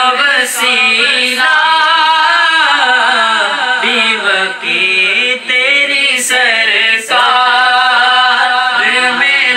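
Solo voice reciting an Urdu naat in long, wavering melodic lines, with short breaks between phrases.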